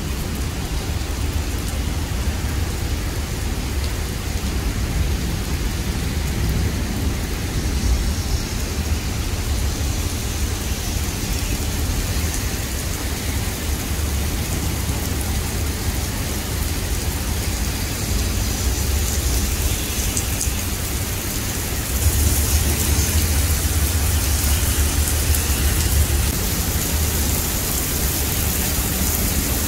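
Heavy rain falling on a wet asphalt road, a steady hiss of drops striking the puddled surface over a low rumble. The downpour grows louder about three-quarters of the way through.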